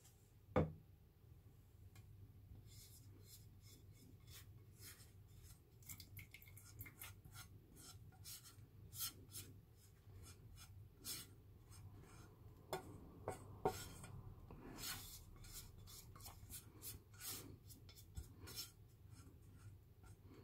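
Faint, irregular scraping and light clicking of a kitchen utensil against cookware, with a sharper knock just after the start and another about two-thirds through.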